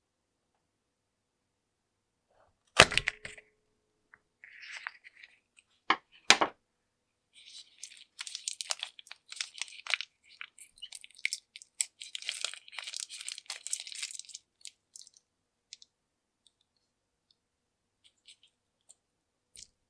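A slime-filled latex balloon bursts with a sharp crack about three seconds in as the scissors cut it, followed by two more sharp snaps around six seconds. Then the torn latex skin is peeled off the slime for several seconds, giving a long run of sticky crackling and crinkling.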